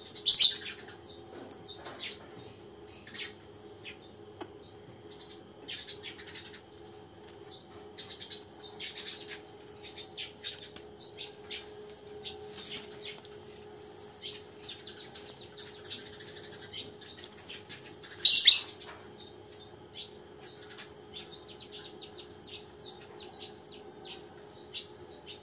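High chirping calls, many short ones throughout, with two loud, sharp cries about half a second in and again about 18 seconds in.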